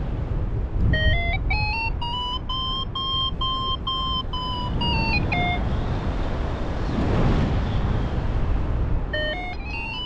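Paragliding variometer beeping in a run of short tones that step up in pitch and then step back down, stopping about five and a half seconds in and starting again, rising, near the end: the beeps and their rising pitch signal the glider climbing in ridge lift. Wind rumbles on the microphone underneath.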